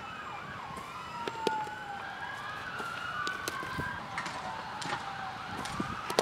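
Emergency-vehicle sirens wailing, several tones overlapping and sweeping slowly up and down, with a few sharp clicks, the loudest about a second and a half in.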